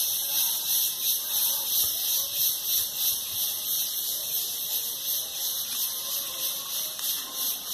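Outdoor ambience dominated by a steady, high-pitched hiss that pulses a few times a second, with faint wavering calls beneath it.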